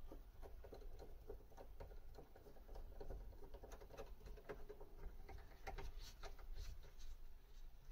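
Faint, irregular small clicks and scratches of hands working a nut onto the wing mirror's mounting screw inside a car door, thicker in the second half.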